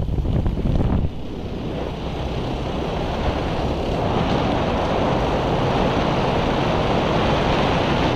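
Wind rushing and buffeting over a phone's microphone on a moving habal-habal motorcycle taxi, with the motorcycle's running underneath. The buffeting is choppy for about the first second, then the rush grows a little louder and steadier from about four seconds in.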